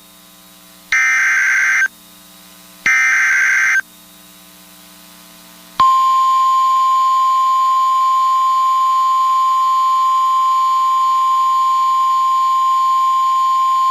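NOAA Weather Radio alert sequence: two roughly one-second bursts of the SAME digital header, a harsh buzzing data warble. About six seconds in, the steady 1050 Hz warning alarm tone comes in and holds, signalling the start of a new National Weather Service warning.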